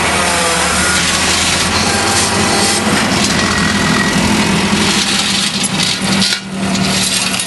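Gehl skid-steer loader's engine running loudly and steadily, with a short dip in level near the end.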